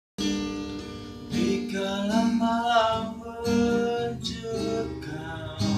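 Acoustic guitar strummed with a person singing along; the voice comes in about a second and a half in and sings a long phrase over the chords.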